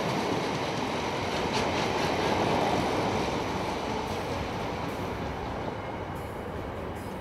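Empty container flat wagons of a freight train rolling past, their wheels rumbling on the track with some faint clicks, gradually getting quieter.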